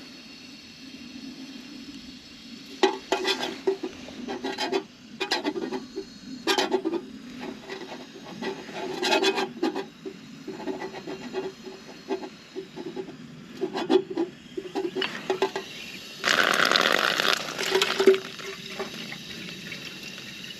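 Footsteps crunching irregularly underfoot, then a short rush of water from an outdoor spigot about three-quarters of the way through, lasting under two seconds.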